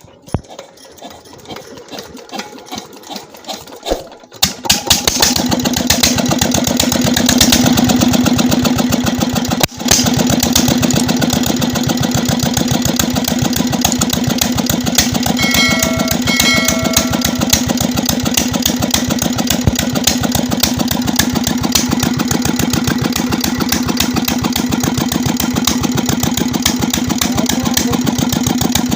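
20 HP Peter diesel engine being started after its injector nozzle has been adjusted: separate firing strokes build up over the first few seconds until it catches about four seconds in. It then runs steadily with an even, fast beat, with a brief dip near ten seconds.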